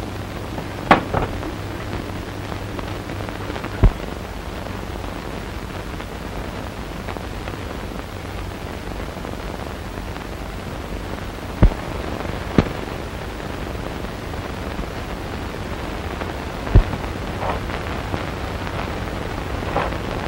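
Steady hiss of an old optical film soundtrack, broken by a few sharp clicks and pops, about five across the stretch.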